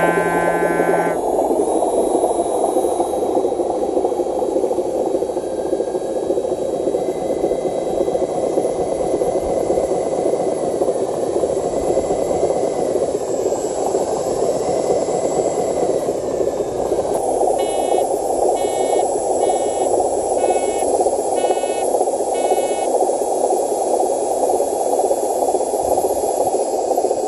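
Radio-controlled model truck running, a steady hiss-like noise with a faint whine that rises and falls in pitch. Past the middle come six short beeps about a second apart.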